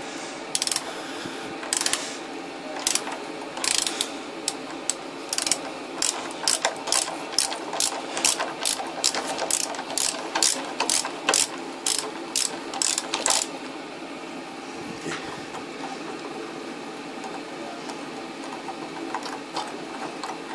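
8 mm ratchet socket wrench clicking as it backs off a nut on an electric water heater's element flange: a run of sharp ratchet clicks, sparse at first, then about two to three a second, stopping about two-thirds of the way through.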